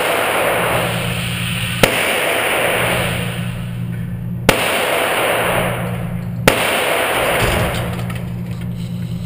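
Three shots from a Glock 26 9 mm subcompact pistol at an indoor range, about two seconds apart. Between the shots there is a loud, steady rushing noise with a low hum.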